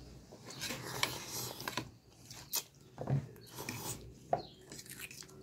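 Eating sounds at a table: scattered light clicks and scrapes of forks against a plastic takeout container of instant ramen, with a brief slurp of noodles a little before the end.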